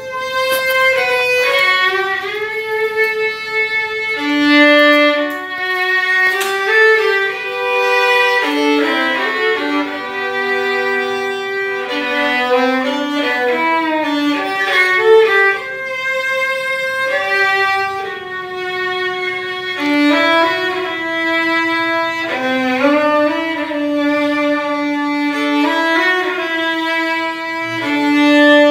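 Solo violin played with a bow: a melody of held notes, with some notes sliding from one pitch to the next.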